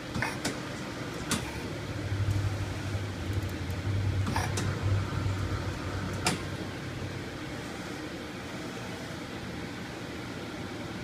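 Sharp ST-40 CNC lathe running: the spindle spins the chuck with a steady low hum that swells for a few seconds and then eases, while the tool turret indexes with several sharp clicks in the first six seconds.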